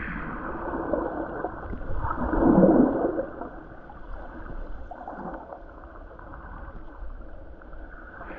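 Muffled water gurgling and sloshing heard with the microphone under the surface, swelling to its loudest about two to three seconds in.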